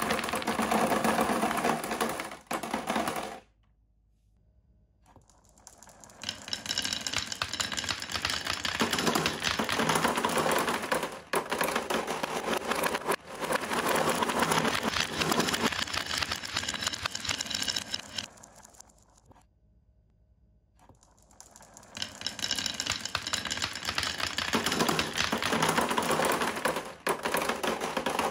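Glass marbles rolling down a wooden track and dropping into a clear plastic toy car, clattering against the plastic and onto the growing pile of marbles in a fast, continuous rattle of clicks. The rattle stops twice for about two seconds, a few seconds in and again past the middle, then starts again.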